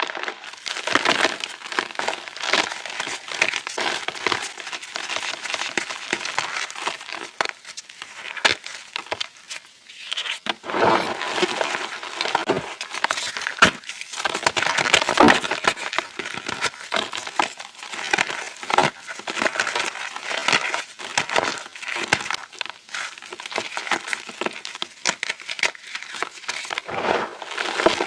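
Reformed chalk chunks being crushed into crumbles: a dense, continuous run of crunches and crackles, easing briefly about nine to ten seconds in.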